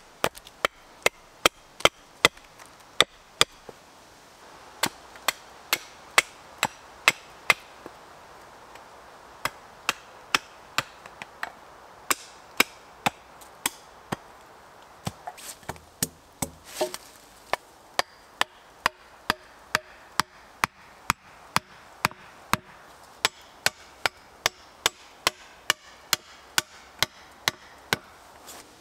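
Hatchet chopping green wood on a log chopping block, shaping pointed stakes: a string of sharp single chops, about two a second, with a few short pauses.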